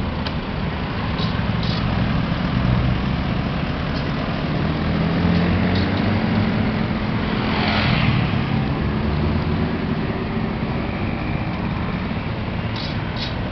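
Road traffic: vehicle engines running steadily, with one vehicle passing close about eight seconds in.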